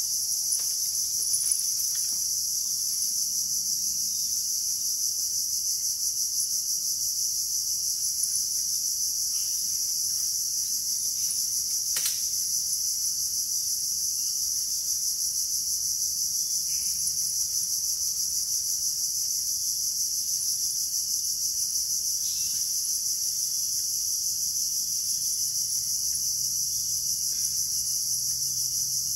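Steady, high-pitched chorus of insects shrilling without a break, with a single sharp click about twelve seconds in.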